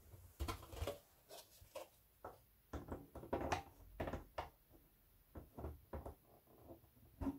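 Irregular light clicks and knocks of hard plastic and metal turntable parts being handled, a dozen or so small taps and bumps with short gaps between them.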